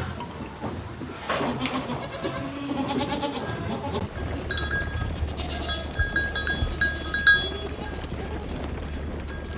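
Farm animal bleating in several pitched, wavering calls. About four seconds in the sound changes abruptly to a steady low hum with short, repeated high-pitched calls.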